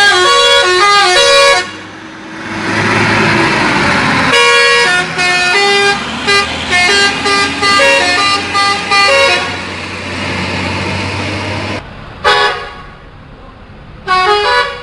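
Indonesian 'telolet' bus horn, a multi-tone musical horn, playing stepping melodies: one phrase, a stretch of rushing noise of about two seconds, a longer tune, then two short toots near the end.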